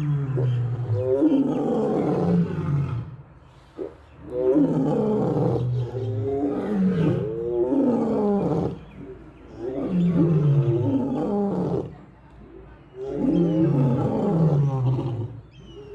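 Lion roaring: a series of long, deep roars, each falling in pitch, with short pauses between.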